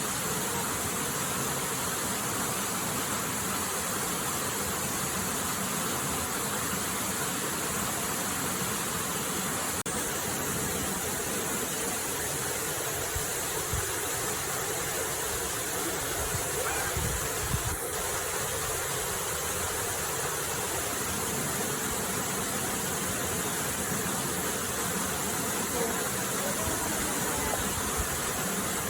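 Steady, even rush of a waterfall, with a few brief low bumps a little past halfway.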